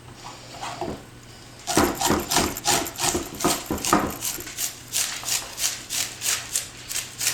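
Cauliflower stem being grated on a cheese grater: a few faint scrapes, then from about two seconds in a steady run of quick rasping strokes, about three a second.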